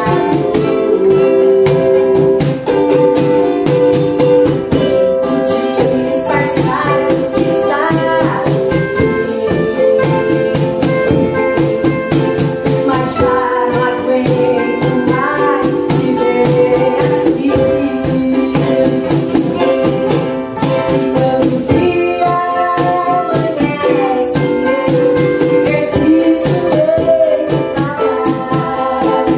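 Acoustic guitar, cajon and ukulele playing a hymn together, with a woman singing the melody in Portuguese. The cajon keeps a steady, dense beat under the strummed chords.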